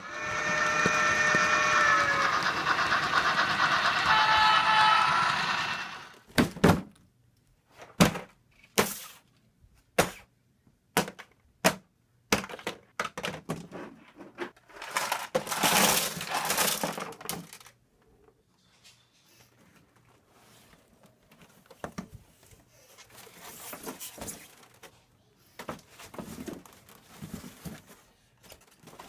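A loud held tone with several pitches for about six seconds, then scattered knocks, thuds and rustling as cardboard model train set boxes and their plastic packaging are handled and shifted.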